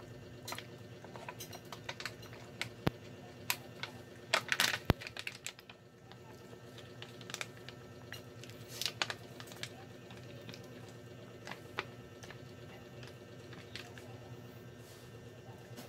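Cooking oil popping and crackling in a nonstick frying pan: scattered sharp pops, bunched together about four to five seconds in, over a steady low hum.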